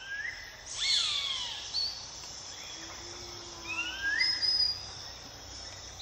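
Birds giving short whistled calls, some rising and some falling in pitch, over a steady high insect drone.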